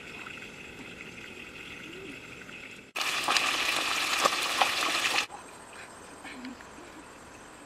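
Whole fish frying in hot oil in a wok: a loud sizzle with scattered pops that cuts in about three seconds in and cuts off abruptly about two seconds later. Before and after it there is only a quieter steady background.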